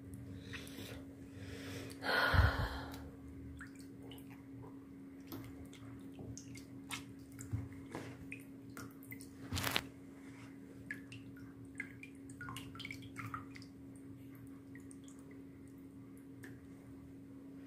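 Wet raw-clay slurry squelched and stirred by hand in a plastic tub of water, with drips and small splashes as the clay dissolves. A louder splash with a low bump comes about two seconds in, and a sharp click near ten seconds, over a steady low hum.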